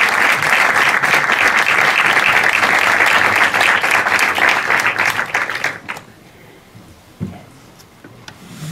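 Audience applauding, dense clapping that stops suddenly about six seconds in; the hall then goes much quieter, with one low thump about a second later.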